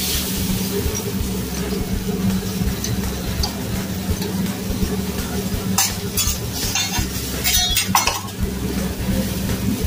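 Food sizzling on a steel hibachi griddle, over a steady low hum. Metal spatulas scrape and clink on the griddle in a run of strokes between about six and eight seconds in.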